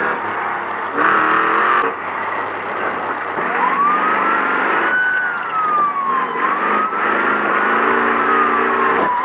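Off-road race truck engine running, cutting abruptly between takes in the first two seconds. About three and a half seconds in, a passing siren starts and wails slowly up and down, rising and falling about every three seconds: the signal to a slower racer to let the truck by.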